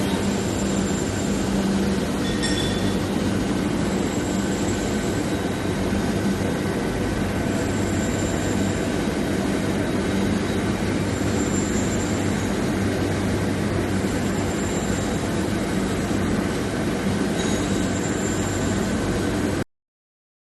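Steel bar induction hardening and tempering line running: a steady mechanical rumble with a constant hum and faint high whines. It cuts off abruptly near the end.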